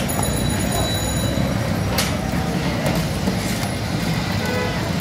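Busy street-market din: a steady rumble of traffic and people, with a faint high whine in the first second and a single sharp knock about two seconds in.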